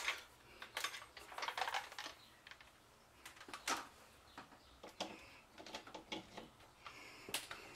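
Faint, irregular clicks and light knocks of things being handled in a kitchen, with a sharper knock near the end.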